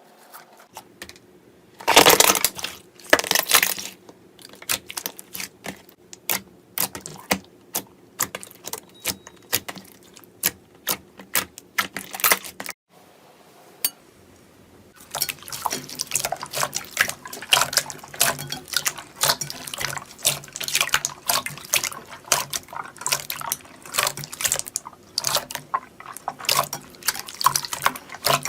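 Slime being squeezed and worked by hand, making wet clicks and pops: two loud squelches near the start, then scattered clicks, then from about halfway a dense, fast crackle of clicks.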